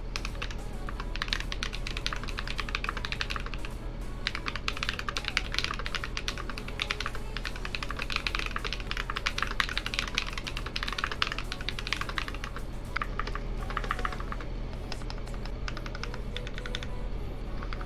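Typing test on a YMDK 84 75% mechanical keyboard with lubed Akko Ocean Blue switches, an aluminium plate and PBT keycaps. Rapid keystroke clacks come in runs with a few short pauses, over a low steady hum.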